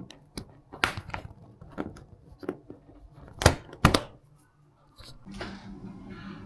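Scattered clicks and knocks of handling, with two sharp knocks about three and a half seconds in. After a short hush, a steady low hum sets in from about five seconds on.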